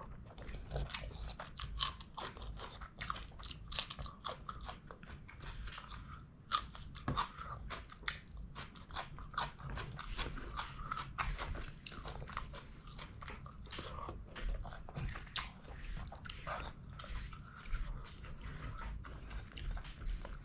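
Close-miked eating: wet chewing and lip-smacking of rice and curry, with fingers squishing and mixing rice on a banana leaf, in a dense run of irregular sharp smacks and clicks.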